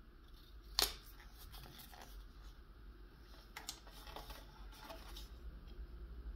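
Hard plastic toy parts being handled and a sticker pressed onto them: faint rubbing and light clicks, with one sharper plastic click a little under a second in.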